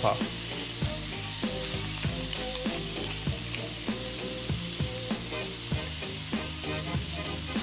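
Diced potatoes, Brussels sprouts and garlic frying in melted butter in a pan, with a steady sizzle.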